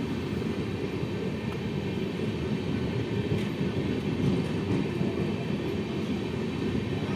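Indian Railways express train's coaches rolling past a station platform: a steady low rumble of wheels on rails.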